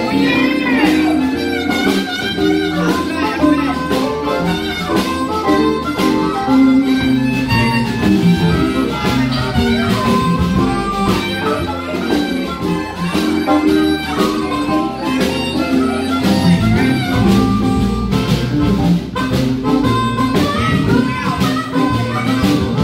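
Live blues band playing, with a harmonica wailing and bending notes over electric guitar, bass guitar and drums.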